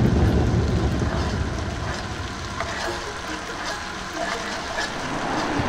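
Mountain bike tyres rolling on the concrete of a skatepark bowl, loudest at the start and easing off, with a few faint clicks.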